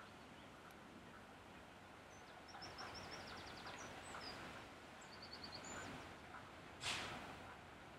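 Birds chirping and trilling over a faint rumble from a distant approaching diesel shunter. A brief burst of noise comes near the end.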